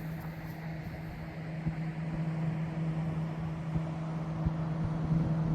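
A steady low machine hum under a faint, even rush of background noise, with a few soft low thumps.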